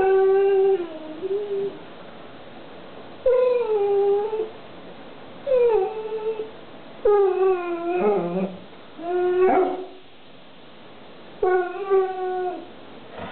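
American bulldog giving a string of about six long, whining howls, each lasting about a second with short pauses between; one near the middle sweeps up in pitch. It is begging for a treat.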